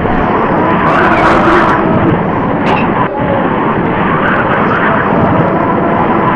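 Heavily boosted 1928 cartoon soundtrack, amplified until its hiss and distortion dominate: a loud, dense rushing noise with faint held tones buried in it. A brief, sharper burst comes about a second in.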